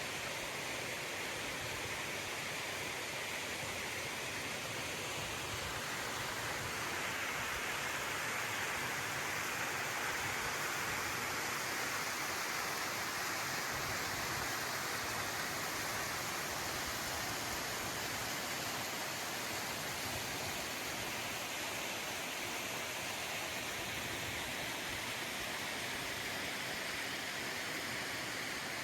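Ribbon Fall, a tall single-drop waterfall, rushing steadily as its water falls onto the rocks at its base, a constant hiss-like wash of water that swells slightly a few seconds in.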